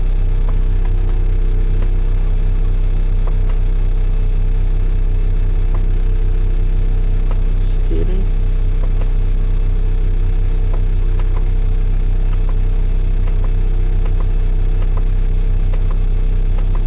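2014 Isuzu NPR diesel engine idling steadily, heard from inside the cab, with a few faint clicks. It is running normally at idle after its DPF/SCR derate fault codes were cleared.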